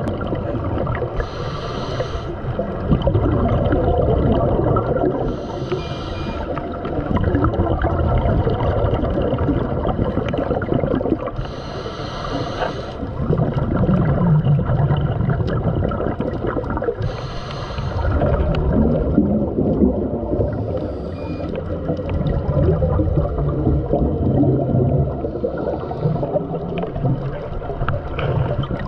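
Scuba regulator breathing underwater: a short hiss on each inhalation about every five to six seconds, and long stretches of bubbling exhaust bubbles in between.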